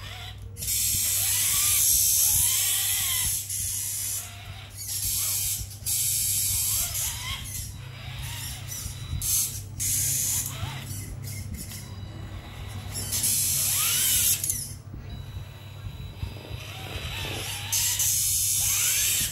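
Steering servo of a Traction Hobby F150 Cragsman RC crawler making a loud, harsh grinding buzz in repeated stretches of one to three seconds as the steering is worked, with fainter rising and falling whines between. It is an abnormal servo noise, loud on left turns, whose cause the owner does not know.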